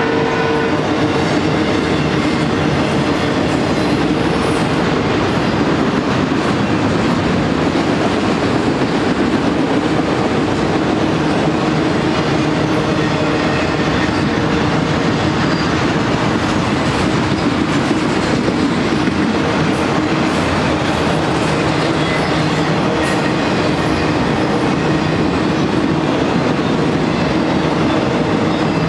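Loaded auto-rack freight cars of a BNSF train rolling past: a steady, unbroken rumble of steel wheels on the rails.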